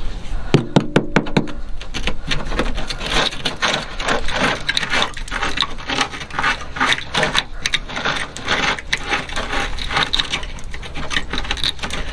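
Rusted steel sill of a Ford Transit MK7 van being picked and prodded at the rust hole: corroded metal and rust flakes scraping, crackling and crunching in a fast, irregular run of small clicks. The sill is rotten, with little sound metal left.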